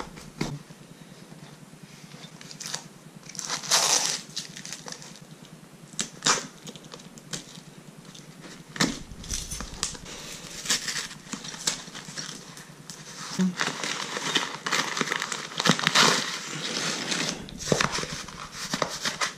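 A cardboard parcel being opened by hand: a key scraping through the packing tape, then cardboard tearing and kraft-paper wrapping crinkling in irregular bursts. The bursts come thicker and louder in the second half.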